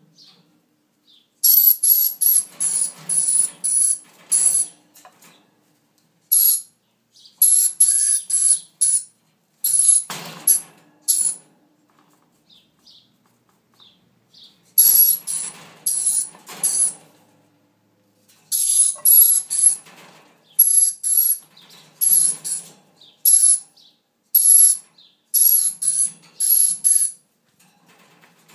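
Dusky lory giving short, shrill screeches in rapid runs of two or three a second, broken by pauses of a second or two.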